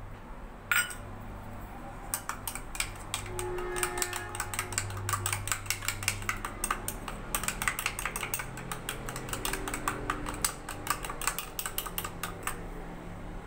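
A metal spoon beating eggs with spices in a small ceramic bowl: rapid clicking of the spoon against the bowl's sides, starting a couple of seconds in and running on.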